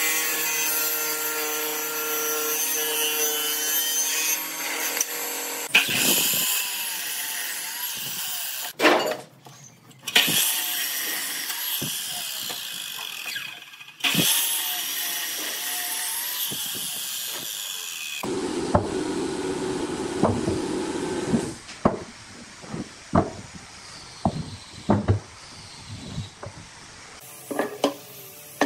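A table saw runs with a steady whine while ripping hardwood strips. Then a miter saw cross-cuts a glued-up block of laminated strips in several loud passes. After that a lower, duller machine sound runs for a few seconds and gives way to a string of sharp wooden knocks as boards are handled on a workbench.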